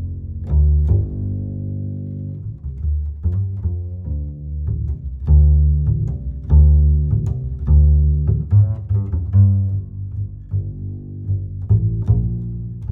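Background music led by low strings: double bass and cello notes, some of them plucked, in a steady rhythm.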